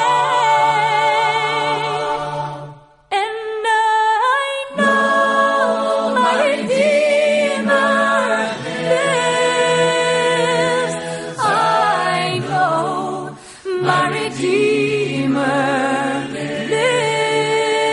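A song with several voices singing with vibrato over a held low note. It thins out briefly about three seconds in, then comes back in full.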